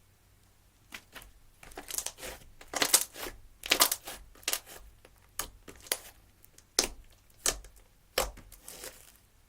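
Slime being squeezed and poked by hand, giving about a dozen irregular sharp clicks and pops with crackling between them.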